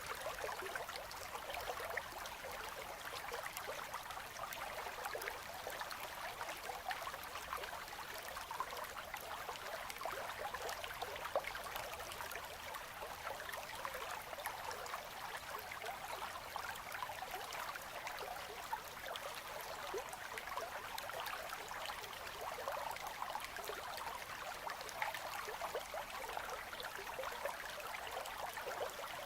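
River current running between ice, a steady babbling and trickling of water with many small splashes and little deep rumble.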